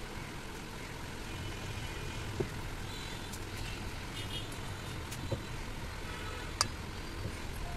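A few light metallic clicks as valve lifter buckets are set into their bores in a cylinder head, the sharpest near the end, over a steady low background rumble.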